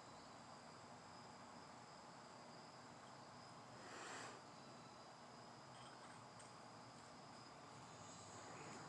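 Near silence with faint, steady, high-pitched insect chirring, and a brief soft noise about four seconds in.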